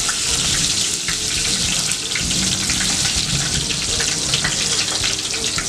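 Fresh fenugreek leaves sizzling in hot oil in an aluminium pot: a steady, dense hiss as the tempering fries.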